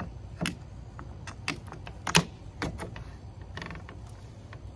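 Scattered plastic clicks and taps as a rear wiper blade's plastic cover is hooked and fitted onto the wiper arm, about half a dozen separate clicks, the loudest a little past two seconds in.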